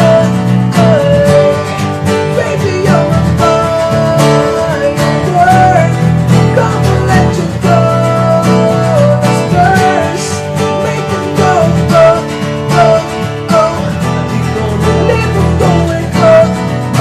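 Music: guitar-led accompaniment with a melody line gliding over it, and no sung words.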